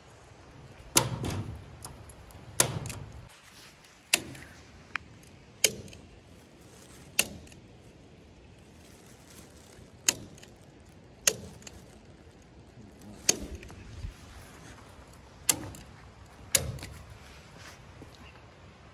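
Hand staple gun fastening chicken wire to a wooden frame: about ten sharp snaps, one every second or two.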